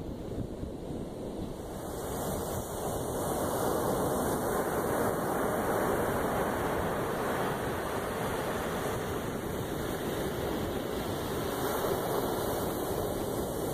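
Ocean surf washing up a sandy beach, a steady rush, with wind noise on the microphone. The rush grows louder about two seconds in and then holds steady.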